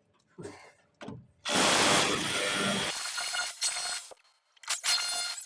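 Power tool cutting into a wall in bursts: a short start near the beginning, then a loud run for about two and a half seconds, and another run near the end.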